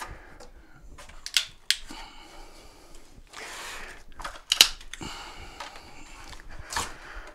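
Scattered sharp clicks and knocks, with a short scraping rustle about three seconds in, from hands handling the plastic spacer blocks and batteries in a mobility scooter's battery compartment.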